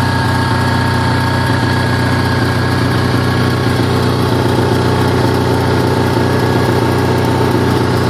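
Onan NH 6.5 kW gasoline generator engine running steadily at constant speed.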